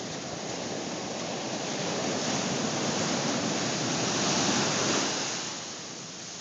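Ocean surf washing up the beach, its rush swelling over several seconds and easing off near the end.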